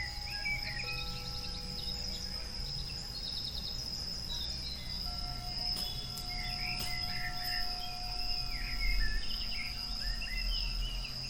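Recorded nature-ambience mix playing: a steady, high cricket chorus with scattered bird chirps over a low, even rumble.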